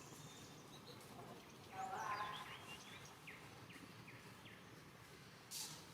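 Small animal calls: a short pitched call about two seconds in, then four quick falling chirps in a row, with a brief sharp rustle or knock near the end.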